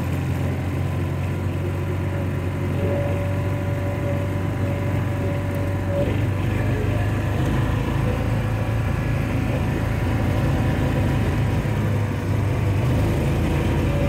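A John Deere Gator utility vehicle's engine runs steadily as it drives across grass. The engine note gets a little louder about six seconds in.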